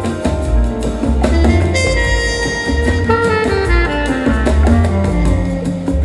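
Music played back over Qualio IQ semi-open-baffle loudspeakers: a dense instrumental track with heavy bass pulses under layered melodic lines.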